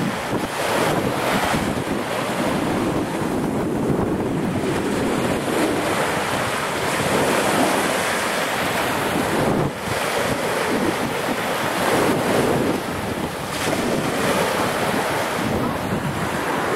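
Small surf breaking and washing up a sandy beach, a steady rushing wash that swells and ebbs as each wave comes in.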